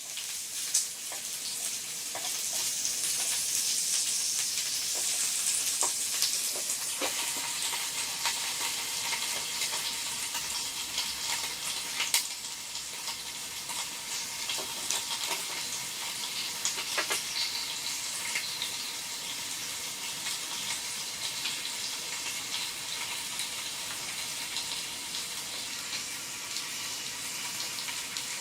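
Steady rain, an even hiss with many scattered drops ticking, and a few sharper clicks.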